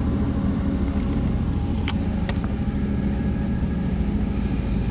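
Boat engine running steadily under way, a constant low drone, with two brief clicks about two seconds in.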